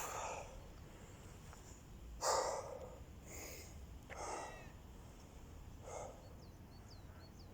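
A man breathing hard, winded from a long set of burpees: about five heavy, noisy breaths, the loudest about two seconds in.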